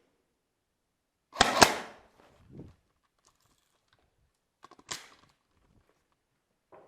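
A few sharp clacks and knocks: a loud pair about a second and a half in, a softer knock just after, another clack near five seconds and a small one at the end.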